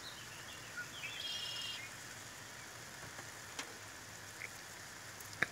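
Faint steady sizzle of a bean and sausage stew simmering in a cast-iron skillet. A brief high-pitched sound comes a little over a second in, and there are a couple of light ticks later on.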